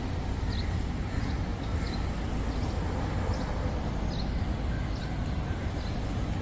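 Outdoor background: a steady low rumble with faint, short bird chirps now and then.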